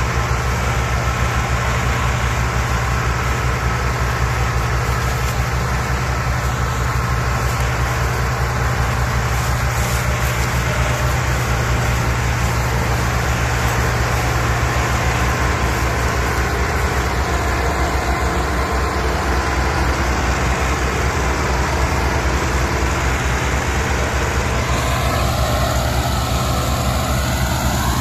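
Ford 3610 tractor's three-cylinder diesel engine running steadily under load as it hauls a heavily loaded trolley.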